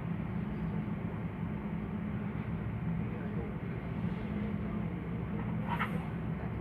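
Steady low mechanical hum of room machinery, with a faint background murmur; a brief clink about six seconds in.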